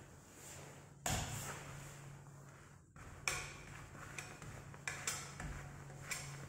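Plastic trowel pressing and smoothing wet cotton-fibre wall coating on a wall: about five sudden scraping strokes, each starting sharply and fading, the loudest about three seconds in, over a low steady hum.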